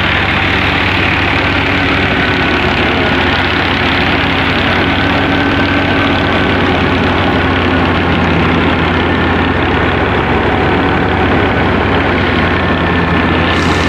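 A tractor-driven wheat thresher running steadily: the tractor engine turning the thresher through its PTO shaft, with the threshing drum and fans making a loud, even mechanical din and a faint high whine running through it.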